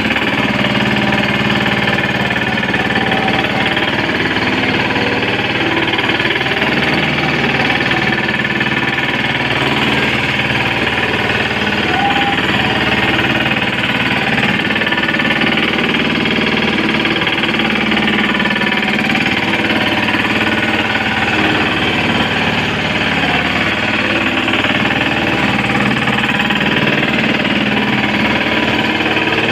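Engine of a small ride-on vibratory tandem road roller running steadily.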